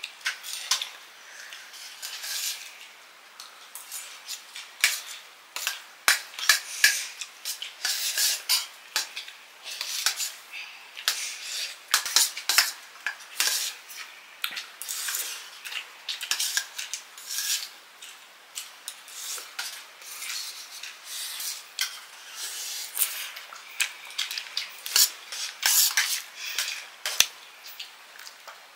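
Dishes and cutlery clinking and scraping in quick, irregular taps, as people eat a meal of rice and curry.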